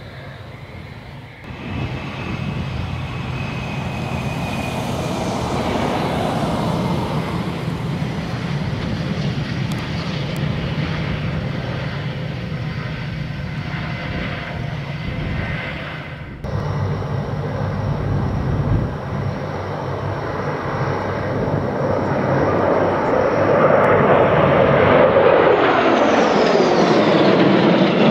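Jet engine roar of an F/A-18F Super Hornet's twin General Electric F414 turbofans during takeoff and runway roll, with sudden jumps where the sound changes. Near the end a louder jet passes overhead, its whine falling in pitch.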